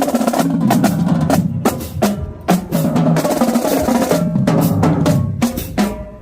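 Marching band drumline playing: snare drum rolls and bass drum hits with sharp accented strokes, over low pitched notes.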